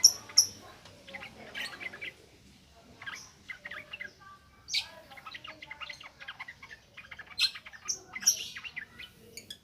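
Yellow-vented bulbul (trucukan) singing a fast, chattering song of short notes in quick runs, with a few louder high notes about five seconds in and again a couple of seconds later.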